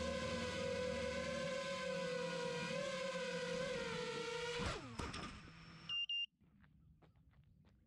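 A 6-inch FPV quadcopter's brushless motors (Ethix Konasty 2407) whine at a steady throttle, the pitch wavering slightly, then spool down in a quick falling glide. About a second later come two short high electronic beeps, then only faint clicks.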